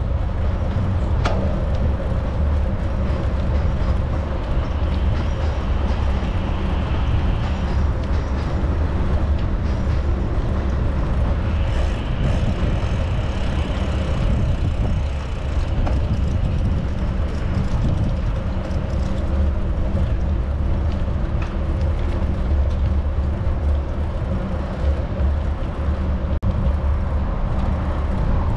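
Steady street traffic from the road beside a bike path, heard from a moving bicycle: a constant deep rumble with no single event standing out.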